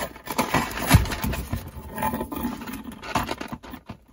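Hands handling a small coated-canvas pouch and its metal chain strap, working the chain's clasp: irregular rustling and scraping with small metal clicks, and a low thump about a second in.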